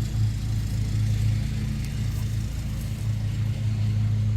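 Lawn mower engine running steadily, a constant low drone.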